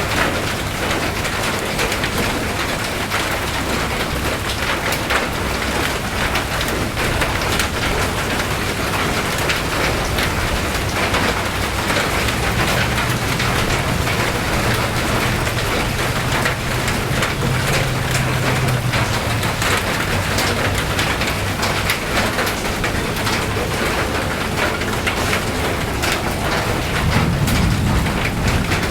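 Steady rain falling, with many separate drops ticking against surfaces. A low rumble comes in for several seconds around the middle.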